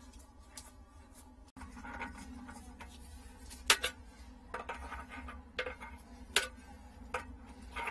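A gloved hand scraping and scrubbing at a rusty metal rim, making irregular sharp clicks and scrapes about once or twice a second over a low steady hum.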